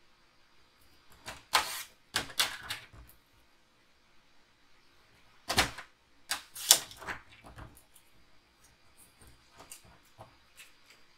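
Designer paper being cut into two narrow strips: two bursts of short, sharp scratchy strokes a few seconds apart, followed by a few faint light clicks of paper being handled.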